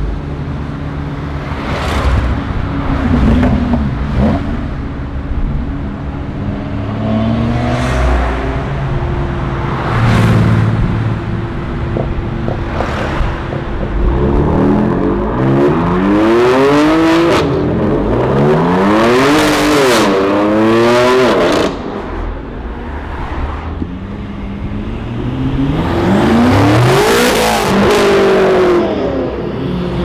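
Tuned BMW M cars driving off in turn, their engines revving hard in repeated rising and falling sweeps. Sharp exhaust cracks come every second or two in the first half; the revving is loudest from about halfway and again near the end.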